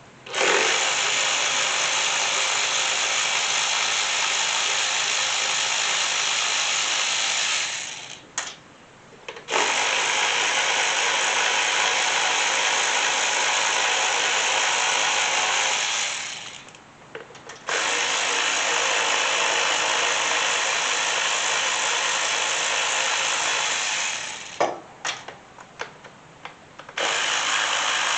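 A handheld power tool running in long steady runs of several seconds, backing out the coil-pack hold-down bolts on a Ford Coyote V8. It stops briefly about 8 and 16 seconds in, and again near the end, where there are a few short clicks.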